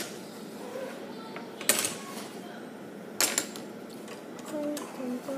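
Lego plates being pressed together on a tabletop, with two sharp plastic clicks about a second and a half apart and a few fainter taps.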